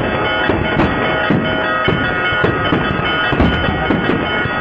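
Fireworks going off close by, a rapid, irregular run of bangs and crackles, several a second. Underneath is a steady drone of several held tones.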